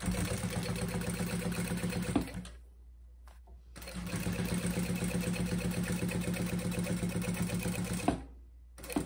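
Sewing machine stitching at a fast, even pace in two runs: about two seconds, a pause of about a second and a half, then about four seconds more.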